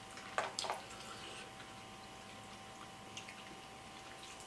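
A few short wet clicks and crackles from hands peeling and pulling apart sauce-covered shrimp and crab, the two loudest close together about half a second in, then only faint ticks over a steady low hum.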